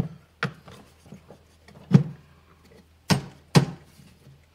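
Sharp plastic clicks and knocks as a Club Car MCOR pedal sensor is pressed into its clips on the accelerator pedal assembly: about five separate clicks, the loudest about two seconds in, two close together a little after three seconds.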